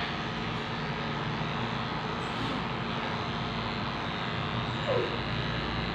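Corded electric grooming clippers running steadily as they shave a dog's thick curly coat.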